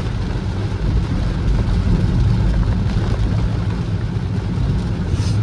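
Car driving on a wet road in the rain: a steady low rumble of engine and tyres with a light hiss of rain and water over it, and a brief louder hiss about five seconds in.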